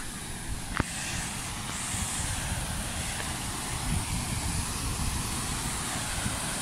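Steady rushing of a waterfall, its hiss a little fuller after about two seconds as it is approached, with one sharp click just under a second in.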